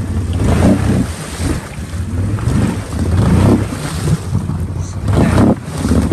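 Can-Am Outlander XMR ATV engine revving in repeated surges as its mud tires spin and churn through mud and water, spraying it behind.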